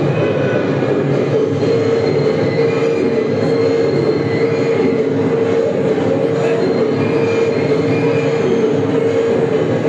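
Recorded train sound effect played over a hall's loudspeakers: a train running, with a steady tone held over dense noise.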